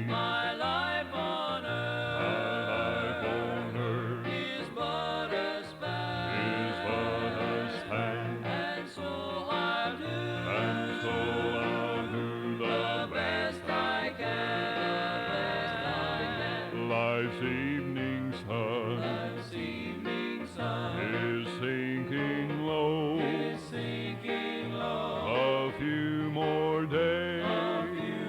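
Gospel vocal group singing in harmony with instrumental backing, played back from a 1983 cassette tape; the recording sounds dull, with nothing in the treble.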